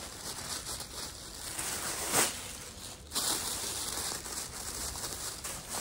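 Packaging rustling and crinkling as a small padded item is pulled from a shipping box, with a brief sharper crackle about two seconds in.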